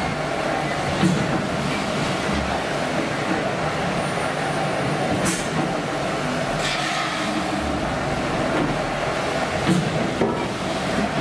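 Restored Victorian steam beam engine running slowly: a steady mechanical rumble with a low thud every two to three seconds and a few sharp knocks.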